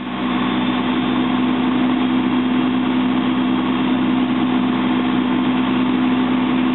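Powered fire-ground equipment running steadily: an even engine drone with a strong, unchanging low hum.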